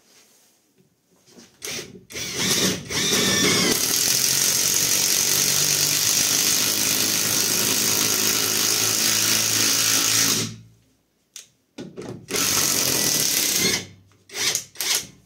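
Catpower 4226 cordless impact wrench driving a long screw into a dry pine log. It starts with a few short trigger bursts, then runs steadily for about seven seconds, stops, and gives a couple more short bursts near the end.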